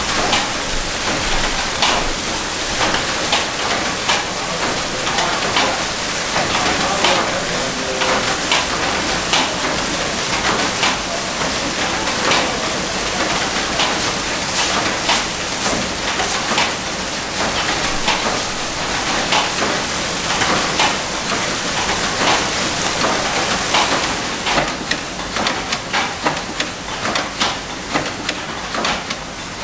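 Water gushing up and spilling over the rim of a vessel, a steady rushing splash with scattered ticks and drips.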